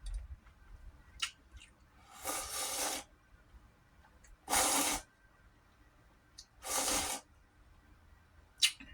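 Slurping ramen noodles three times, each a short hissing intake lasting under a second, with a few faint clicks between.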